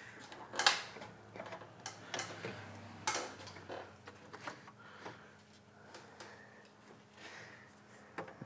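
Scattered light clicks and knocks of a truck's AC condenser and its brackets bumping against the radiator and shroud as it is slid down into place by hand, the sharpest about two-thirds of a second in and again about three seconds in.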